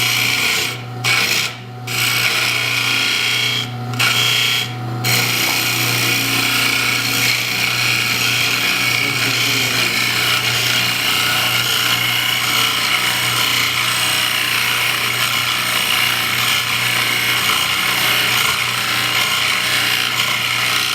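Turning tool cutting and scraping wood spinning on a lathe, over the steady hum of the lathe motor. The cut breaks off briefly four times in the first five seconds as the tool is lifted, then runs on continuously.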